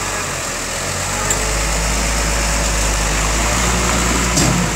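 Diesel engine of a concrete mixer truck running and growing louder about a second in, with a brief knock near the end.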